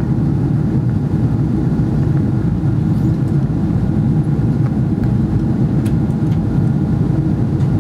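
Steady cabin noise inside a Boeing 777-300ER in flight: a constant low rumble of its GE90 engines and the airflow over the fuselage.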